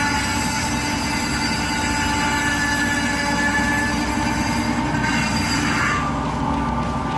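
Forestry machinery running with a loud, steady, high-pitched metallic squeal made of several held tones over a low rumble. The squeal drops away about six seconds in, leaving the lower running noise.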